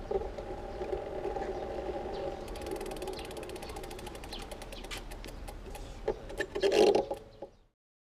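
Road bike drivetrain turning, with the chain running over the chainrings and the front derailleur freshly adjusted, then the rear freehub ratchet ticking rapidly as the wheel freewheels, the ticks thinning out before the sound cuts off.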